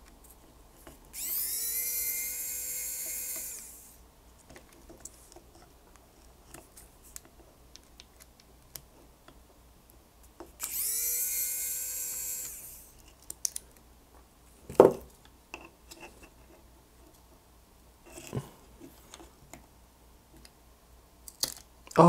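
Electric precision screwdriver running twice, each run a high whine that rises as the motor spins up and then holds steady for two to three seconds, backing out the small screws of a drone frame. Small plastic clicks from handling parts come between the runs, with one sharp knock about two-thirds of the way in.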